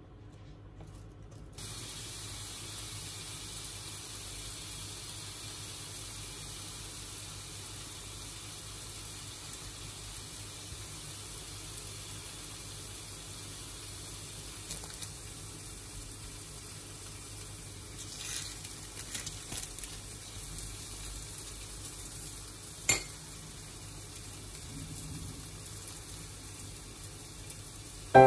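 Beef burger patties sizzling steadily in a frying pan, the sizzle starting abruptly about two seconds in. There are light rustles partway through and one sharp click a few seconds before the end.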